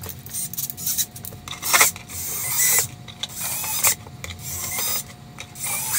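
A hand brushing and rubbing across a plastic cover, sweeping away shavings around freshly cut holes: a series of short, irregular swishes.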